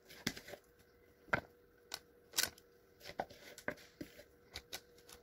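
Light, irregular clicks and scrapes of a utensil against the bowl and a paper-lined cake pan, with baking paper crinkling, as thick cake batter is spread over apples and walnuts. About a dozen short clicks are scattered through, over a faint steady hum.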